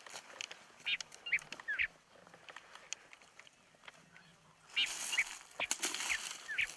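Birds calling: short notes that glide up and down in pitch, in a cluster about a second in and another near the end, over light crackles.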